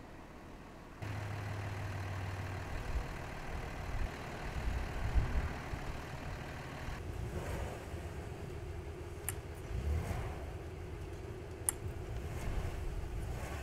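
Vehicle engines running in deep snow, a fire engine among them. The sound changes about a second in and again about halfway through, and two sharp clicks come in the second half.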